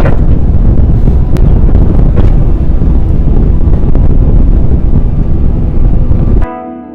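Strong wind buffeting the microphone, a loud, heavy rumble. It cuts off suddenly about six and a half seconds in, and music begins.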